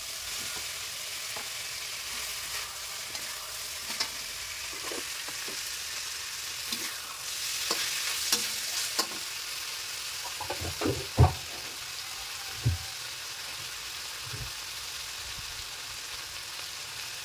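Shrimp, tofu and bean sprouts stir-frying in a wok: a steady sizzle, with a metal spatula scraping and knocking against the wok. The sizzle swells a little about halfway, and the loudest knocks come about two-thirds of the way in.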